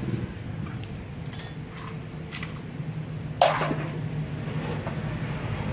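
A few clicks and small knocks as plastic cordless-tool battery chargers and packs are handled, the loudest a sharp knock about three and a half seconds in, over a steady low hum.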